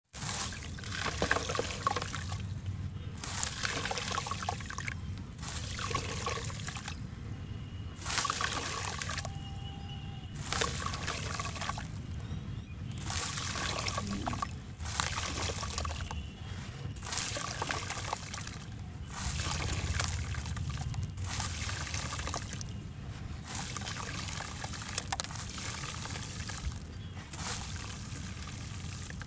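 Handfuls of wet sand poured back into a bowl of water over and over: a gritty trickling and splashing that comes in runs of a second or two, with short pauses between scoops.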